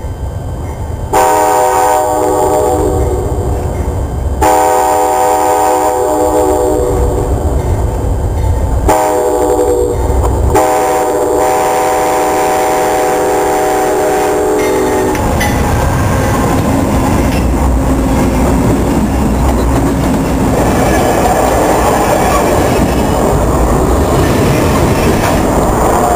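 Amtrak GE Genesis diesel locomotive sounding its horn for the grade crossing as it approaches: two long blasts, a short one, then a long one, a multi-note chord. The train then passes close by, its wheels rumbling and clacking over the rail joints without a break.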